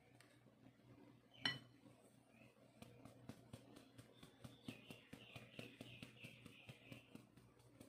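Hand tapping the side of a metal mesh sieve of flour held over a glass mixing bowl: one sharp clink about a second and a half in, then a quick, even run of light taps, about five a second, to shake the flour through. Faint overall.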